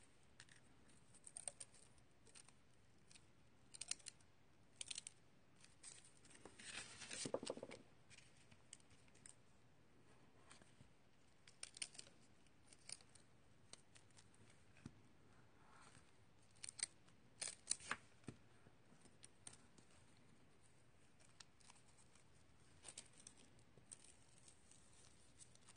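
Faint, scattered clicks and short scratchy rustles of paper and card stock being handled on a craft table. A longer scratchy rustle comes about seven seconds in.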